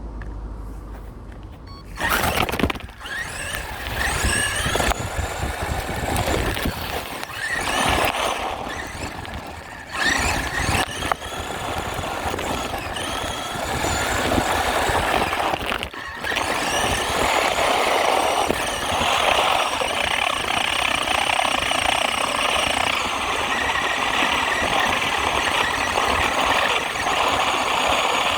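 RC truck's motor whining as it is driven, its pitch rising and falling with the throttle. It starts suddenly about two seconds in, cuts out briefly twice, and holds a steadier whine in the second half.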